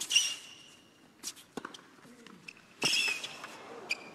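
Tennis rally on a hard court: racket strikes on the ball every second or so. Shoes squeal sharply on the court surface near the start and again about three seconds in, and a player grunts briefly after some shots.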